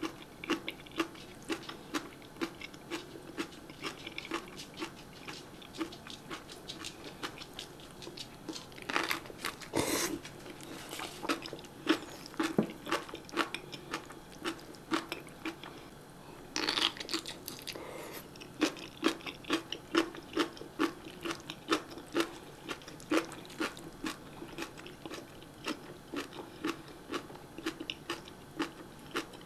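Close-up crunching and chewing of spicy napa cabbage kimchi, a steady run of wet crisp crunches about two to three a second. Two longer, noisier bursts come about nine and seventeen seconds in.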